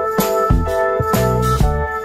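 Background music with a steady beat: shaker-like percussion strikes about twice a second over sustained chords and a moving bass line.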